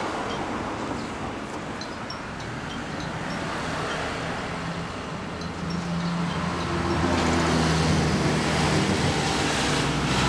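1979 Honda CBX1000's air-cooled inline-six, breathing through Keihin FCR33 carburettors with open velocity stacks and a six-pipe exhaust, running at low revs, then revved up about two-thirds of the way in and held at higher revs.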